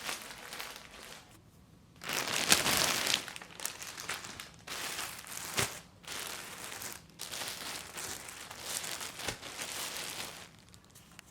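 Packaging crinkling and rustling as it is handled, in several stretches with short pauses between them.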